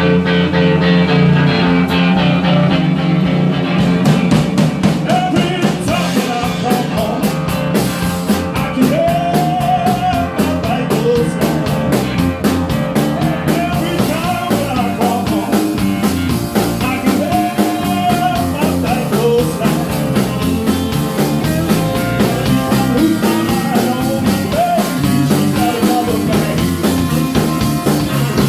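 Rock band playing live: electric guitar, with the drum kit coming in about four seconds in, then a steady driving beat with sustained, bending lead notes over it.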